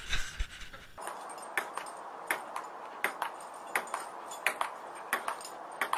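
Table-tennis ball clicking sharply on the table and bat in a rally, the clicks often in quick pairs about every half-second to second, starting about a second in.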